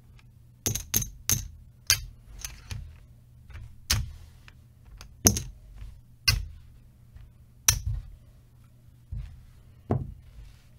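Casino chips clicking against one another as they are picked up and stacked one by one to be counted: a string of sharp, irregular clicks.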